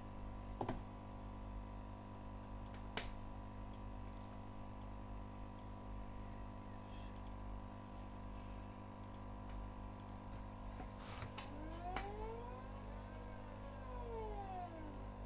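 Two small stepper motors driven by DRV8825 drivers whine steadily while energized. A few sharp clicks come early. About eleven seconds in the motors slew, their whine rising in pitch as they speed up, then falling as they slow to a stop.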